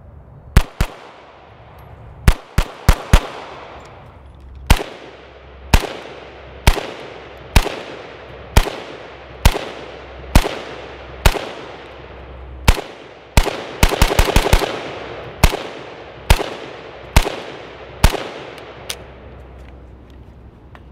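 A long string of single gunshots from a firearm, mostly about one a second, each with a short echo tail. A quick run of shots comes about two-thirds of the way through.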